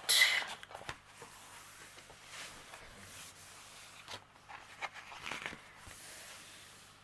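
Faint rustling and crinkling as a rolled diamond painting canvas with its plastic cover sheet is handled, with a brief louder rustle at the start and a few soft taps and clicks.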